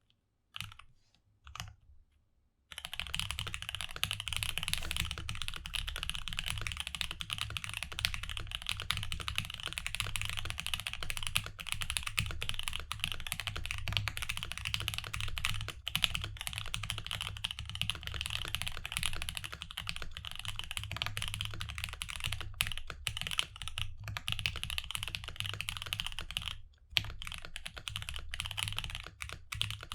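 Fast, continuous typing on a Cyberboard mechanical keyboard with Alpaca linear switches lubed with Krytox 205g0 and filmed, under GMK Denim keycaps. A few single keystrokes come first, then steady rapid typing sets in about three seconds in, with a brief pause near the end.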